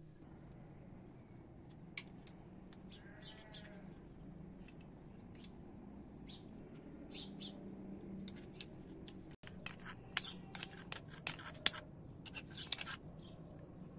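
Metal spoon clicking and scraping against a small mortar as its crushed contents are scooped out, a quick run of sharp taps in the last few seconds. Faint bird chirps earlier, one about three seconds in.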